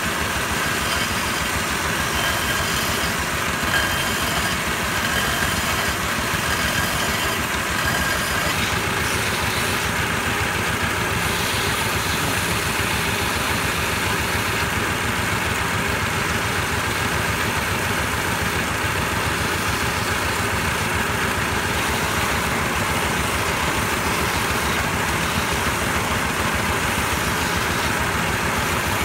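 Motor-driven wood lathe running steadily while sandpaper is held against the spinning turned wooden spindle, an even, unbroken machine noise.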